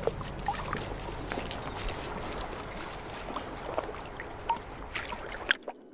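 Water sloshing and trickling as an Amazonian manatee feeds at the surface among floating water lettuce; the sound cuts off suddenly near the end.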